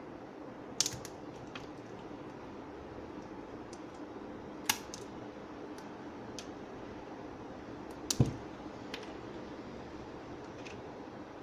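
A few sharp clicks and taps, several seconds apart, over a steady low hum, as small parts and tools are handled during a teardown. The loudest comes about eight seconds in, with a dull knock.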